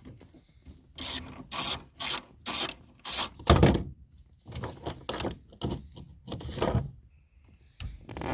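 Repeated rubbing or scraping strokes, about two a second, with one heavier knock about three and a half seconds in, from hand work on a car's fuel pump.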